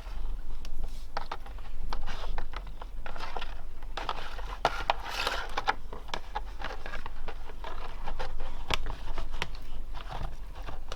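Handling noise from hands working a squishy-making kit: irregular scraping, rustling and small clicks and taps.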